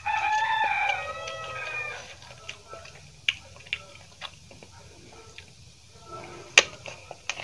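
A rooster crows once, a call of about two seconds at the start. After it come soft eating sounds: mouth clicks, then a sharp crunch near the end as a raw green chili is bitten.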